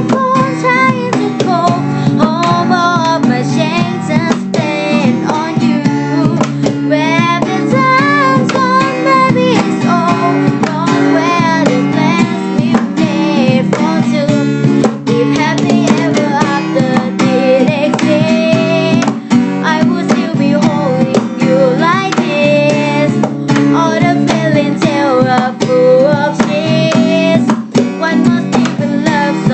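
Acoustic band music: strummed acoustic guitar under a wavering lead melody line, continuing without lyrics.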